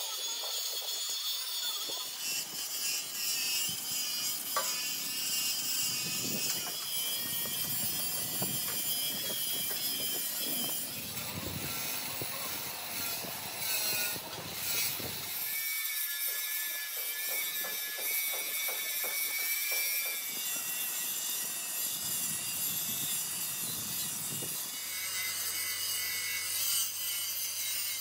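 Workshop tool noise: continuous rough scraping and rasping, like sawing or sanding, changing abruptly a few times.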